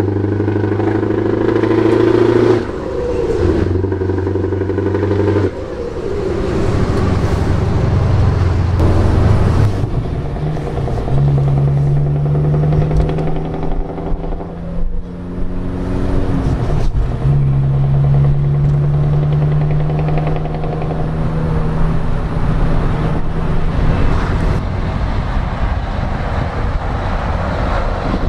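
Scania 164 580 V8 truck engine with open pipes, pulling under load. Its pitch climbs and drops sharply at gear changes a couple of times, then holds steady at higher revs.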